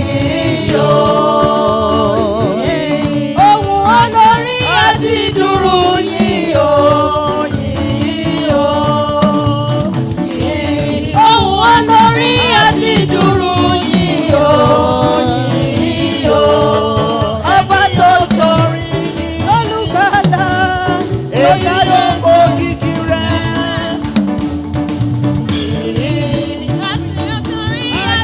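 Gospel praise song sung in Yoruba, a voice with vibrato carrying the melody in repeated phrases over instrumental accompaniment.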